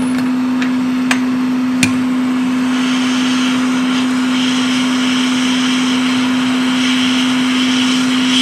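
Hot-air rework station blowing on a circuit board to desolder components: a steady fan hum with airflow hiss, a couple of small clicks in the first two seconds, and a higher hiss that comes in about three seconds in.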